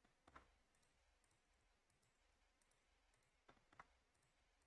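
Faint computer mouse clicks over near silence: a pair about a third of a second in and a few more about three and a half seconds in.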